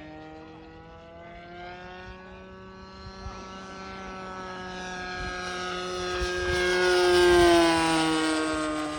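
Radio-controlled model airplane's motor and propeller whining as it flies past. The whine grows louder and slightly higher, is loudest about seven seconds in, then drops in pitch and fades as the plane goes by. The motor is said to have bad bearings.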